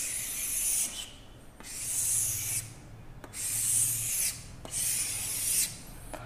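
Chalk writing on a blackboard: four scratchy strokes, each about a second long, with short pauses between them.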